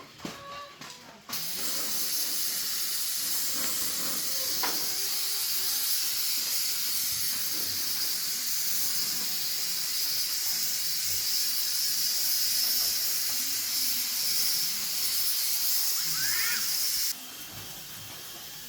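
Steady high hiss of a spray or air jet that switches on abruptly about a second in and cuts off sharply near the end.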